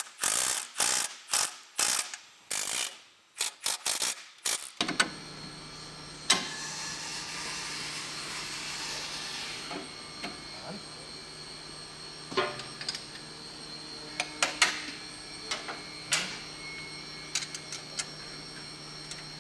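Hand ratchet wrench clicking through a quick run of strokes as the upper mounting bolts of an EXOSLED ski conversion are tightened. After about five seconds it gives way to a steady low hum with occasional tool clicks and clanks.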